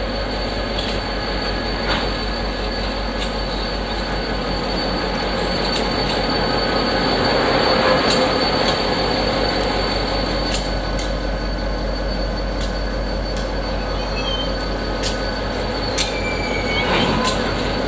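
Diesel locomotive moving at a crawl on a spur line, its engine giving a steady low rumble that swells slightly midway. Irregular clicks come from the wheels on the track, and short squeals are heard near the end.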